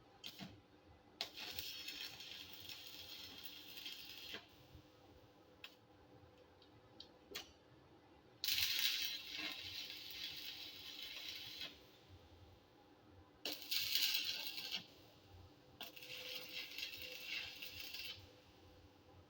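Electric arc welding, laying short runs on steel strip-plate blades on a hollow steel roller: the arc crackles and sizzles in four separate runs of one to three seconds each, with quiet pauses between.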